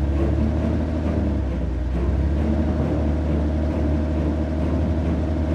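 Heavy vehicle engine sound effect running steadily with a low rumble.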